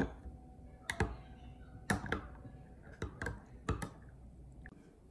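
Metal spoon clinking against the inside of a glass while a drink is stirred: a string of sharp clinks, mostly in close pairs about once a second, the glass ringing briefly after some of them.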